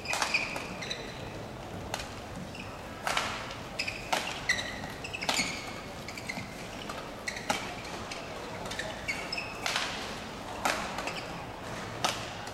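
Badminton rally: rackets hitting the shuttlecock with sharp cracks about once a second, with short squeaks of court shoes between the hits.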